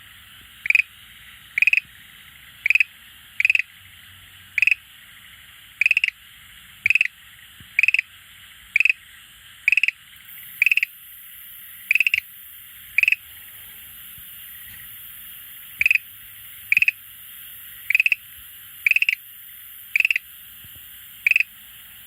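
Schlegel's green tree frog calling: a series of short, loud calls repeated roughly once a second, about twenty in all, with a pause of a few seconds midway.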